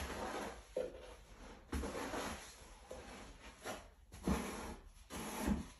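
Irregular scraping and light knocks, roughly one a second, from hand work on the concrete floor along the wall.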